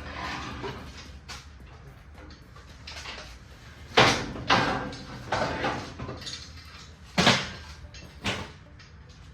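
A series of sharp bangs and knocks, the loudest about four seconds in and again just past seven seconds, over a low steady hum.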